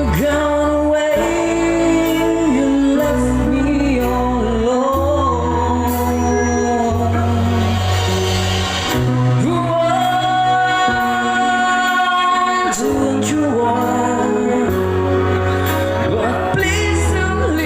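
Band playing a song with a steady bass line and a sung melody gliding between notes.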